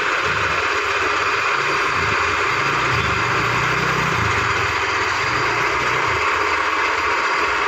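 Automatic metal lathe running: a steady whirring hiss with a low hum underneath that wavers slightly.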